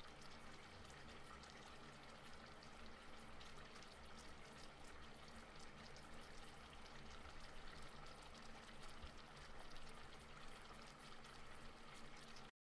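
Faint bubbling and fizzing of mung bean soup simmering in a wok on the stove, over a low steady hum.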